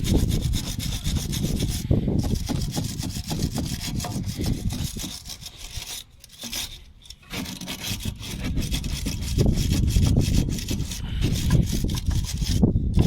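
Wire brush scrubbed rapidly back and forth over a Skoda Octavia 2's front anti-roll bar link to clean it before removal. The strokes briefly stop about six seconds in, then start again.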